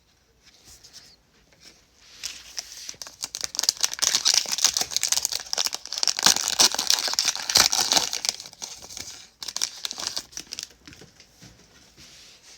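Foil trading-card pack wrapper crinkling and tearing as it is ripped open and handled, a dense crackle lasting several seconds that thins out to a few scattered crinkles.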